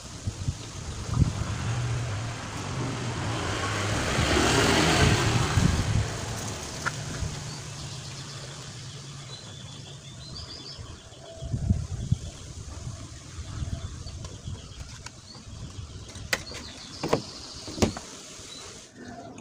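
A motor vehicle passing by, its engine and tyre noise swelling to a peak about five seconds in and then fading to a low hum. Birds chirp a few times, and several sharp clicks sound near the end.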